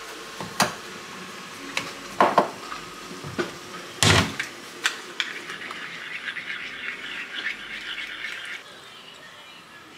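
A few sharp knocks as a bottle is put back in a kitchen cabinet, the loudest about four seconds in, then a metal spoon stirring thick peanut sauce in a small ceramic bowl, a quick run of light scrapes and clinks for about three seconds that stops near the end.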